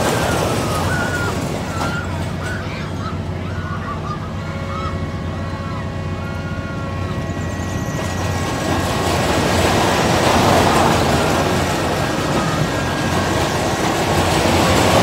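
Fairground ride running: a steady low mechanical hum. Faint short pitched sounds come and go in the first half, and a louder rushing noise swells up about halfway through.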